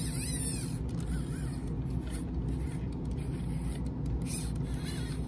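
The gear train in the freshly repaired front leg and hip joint of a Sony aibo ERS-1000 robot dog whirs as the leg is pushed back and forth by hand. It gives a few short whines that rise and fall in pitch, clustered near the start and again near the end, over a steady low hum.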